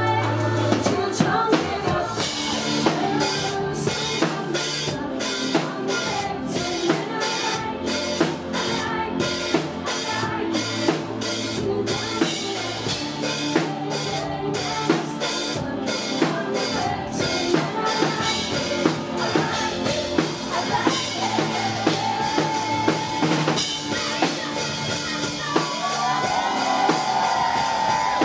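Live rock band playing: distorted electric guitar, bass guitar and a drum kit keeping a steady beat, with a bending guitar or vocal line near the end.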